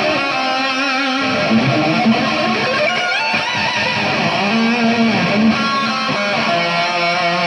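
Electric guitar playing a lead line of sustained notes with bends, slides and vibrato.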